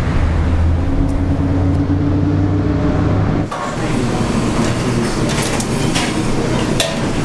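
A steady low rumble with a hum, which cuts off about three and a half seconds in. Then metal serving tongs clink against steel buffet trays, with scattered clatter over restaurant room noise.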